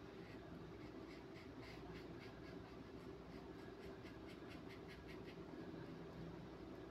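Faint scratchy strokes of a paintbrush dabbing paint onto paper, several a second, stopping about five seconds in, over a low steady hum.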